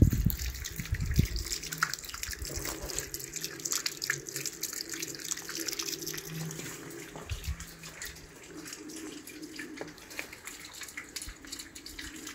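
Water running from a hose into a bucket and spilling over its rim, a steady splashing trickle.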